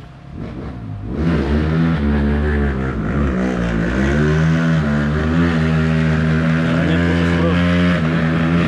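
Trail motorcycle engine running close by, coming in loud about a second in and revving, its pitch dipping and rising before holding at a steady high rev.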